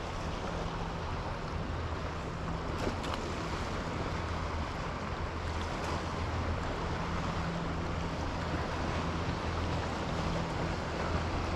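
Steady wind on the microphone and choppy moving water of a fast current, with a steady low hum underneath and a few faint clicks.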